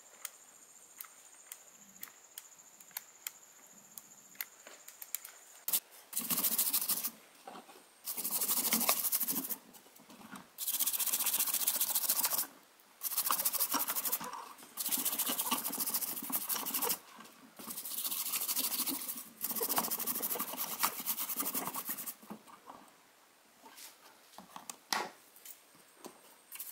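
A brush scrubbing the freshly soldered underside of an amplifier circuit board, in about seven scratchy strokes of a second or two each, starting about six seconds in. Before that there are only faint small ticks.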